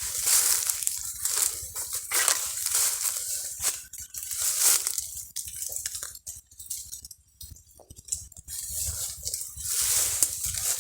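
Irregular crunching and rustling of dry leaves and twigs, in uneven bursts, dying down for a couple of seconds in the middle.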